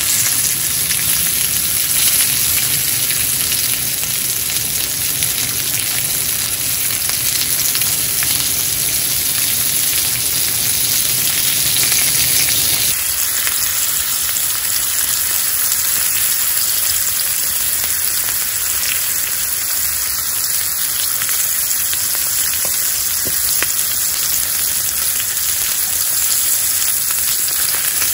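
Thick fish steaks sizzling steadily on a ridged griddle plate over a portable gas stove.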